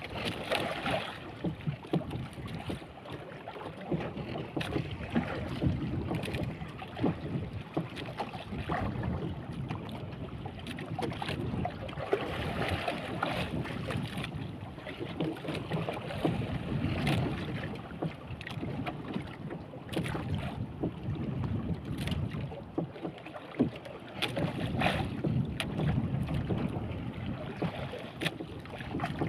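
Sea water sloshing and slapping against the hull of a small wooden fishing boat, rising and falling with the swell, with wind on the microphone and occasional sharp knocks.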